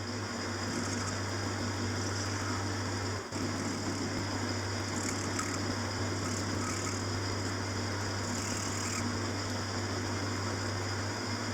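Small metal lathe running with a steady motor hum while a tool faces off and turns down a piece of square brass stock. The sound dips briefly about three seconds in.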